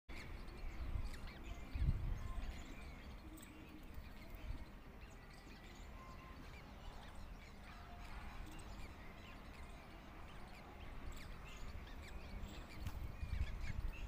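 Birds chirping: many short, high chirps and whistles scattered throughout, over a low rumble that swells near the start and again near the end.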